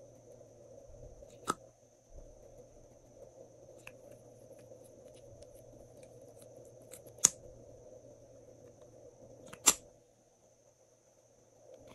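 Small plastic gel tubes and their caps handled by hand: three sharp plastic clicks, one near the start and two louder ones later, with faint ticks between, over a steady low hum.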